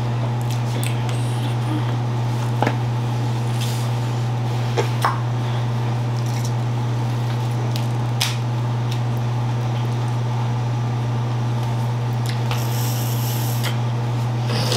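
Snow crab legs and lobster tails being cracked and picked apart with gloved hands: a few small, sharp shell clicks and a brief hiss near the end, over a steady low hum.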